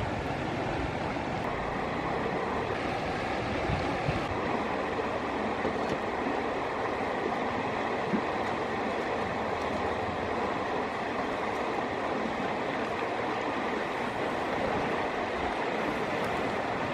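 Steady rush of flowing river water, an even noise without a break.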